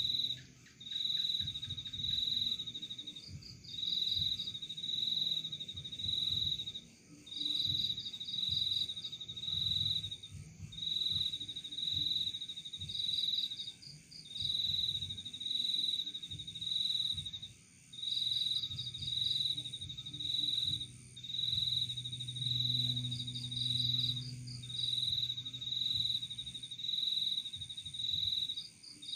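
Crickets chirping: high trilled chirps of about a second each, repeated with short gaps, with a fainter, higher trill every few seconds. A faint low rumble runs underneath.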